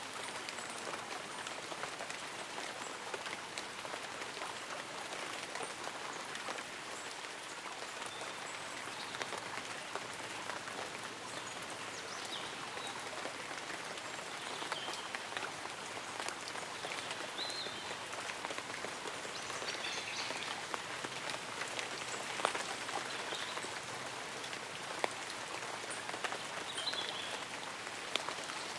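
Light rain falling on tree leaves and an umbrella: a dense, even patter of small drops with a few louder single drops. A few faint, short, high chirps sound now and then over it.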